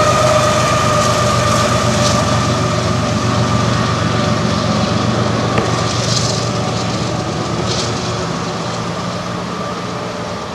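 CSX diesel locomotive working as a distributed-power unit in a freight train, passing with a steady engine drone and a high whine that sinks slightly in pitch and slowly fades as it moves away. Road vehicles whoosh past about six and eight seconds in.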